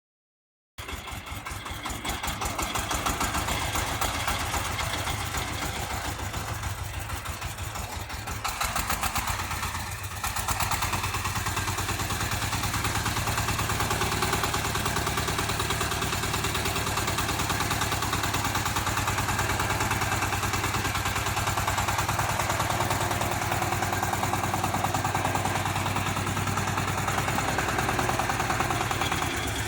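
A 35 hp four-wheel-drive mini tractor's diesel engine running steadily with a rapid, even firing beat. It cuts in abruptly about a second in, eases briefly about a third of the way through, then holds steady.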